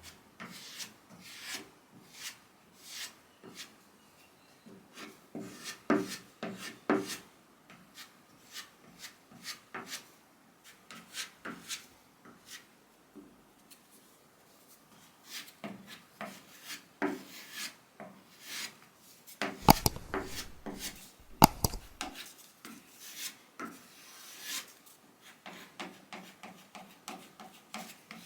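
Wood being worked by hand in short, uneven rubbing strokes, roughly one or two a second, with two louder sharp knocks about two-thirds of the way through.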